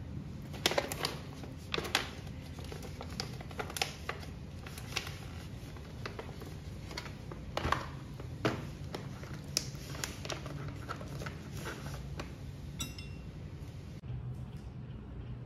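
Irregular light clinks and taps of stainless-steel coffee tools being handled and set down on a metal drip tray: a dosing cup on a scale, a portafilter and a tamper. A low steady hum runs underneath.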